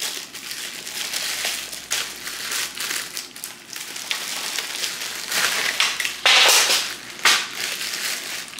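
Clear plastic wrapping crinkling in uneven bursts as a folded tripod is handled and unwrapped. The loudest crinkle comes about six and a half seconds in, with another short one just after.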